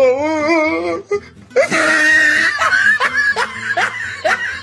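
A person laughing hard: a wavering, pitched laugh at first, then louder breathy laughter breaking into short rising bursts.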